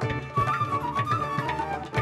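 Live ensemble music: a wind instrument plays an ornamented, gliding melody over regular hand-drum strokes.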